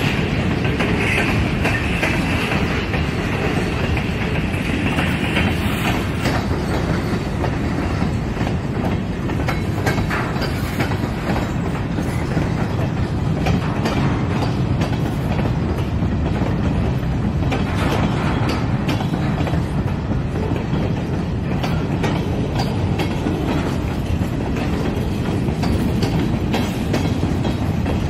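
Freight train of covered hopper cars rolling past close by: a steady rumble of steel wheels on rail with scattered clicks and clacks over the rail joints. A higher hiss sits over it for the first six seconds or so.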